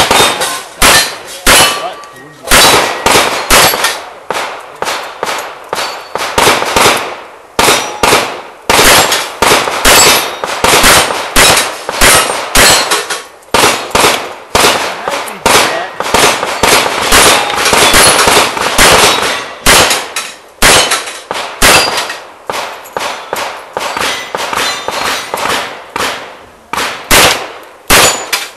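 Smith & Wesson 625 revolver firing dozens of shots in quick strings with short pauses between them, each shot followed by a short ringing decay.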